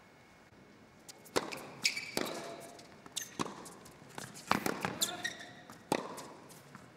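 Tennis ball bouncing and being struck on an indoor hard court: a series of sharp, separate pops, irregularly spaced, beginning about a second and a half in.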